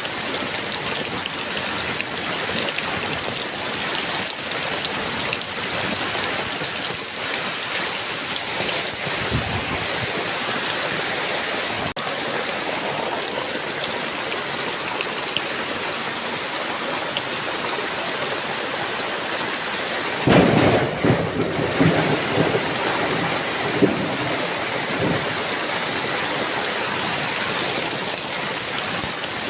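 Heavy rain falling steadily, with a thunderclap about two-thirds of the way through that rumbles on for several seconds, and a fainter rumble of distant thunder near the middle.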